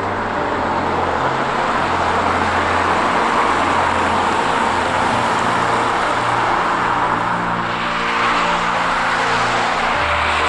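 Steady rushing road noise from cycling along wet tarmac beside traffic, tyre and wind noise mixed with passing cars. The rush turns brighter about eight seconds in.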